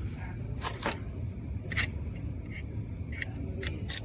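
A steady, high-pitched pulsing trill of crickets, with a few sharp clicks and taps as small parts are handled.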